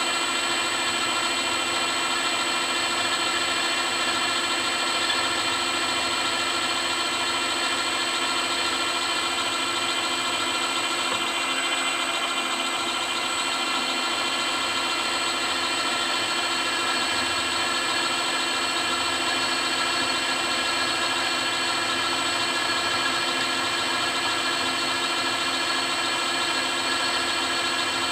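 Milling machine running steadily, its spindle whine made of many steady tones, as a cutter is fed gently into a steel shaft.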